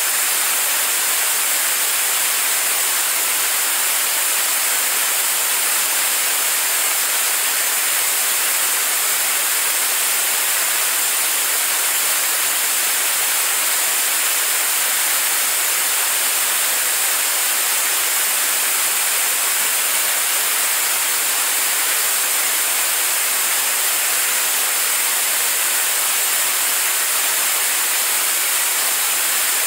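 Staged-combustion liquid rocket engine prototype in steady-state firing on a test stand during a 600-second hot-fire test: an unbroken rush of exhaust noise, strongest in the treble with almost no deep bass, holding constant throughout.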